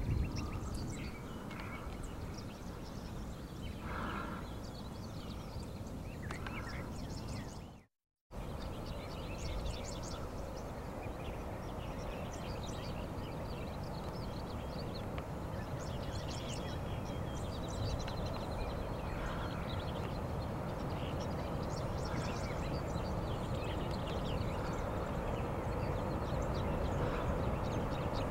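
Steady wind noise on the microphone under a storm, with birds chirping and calling throughout. The sound cuts out completely for a moment about a third of the way through.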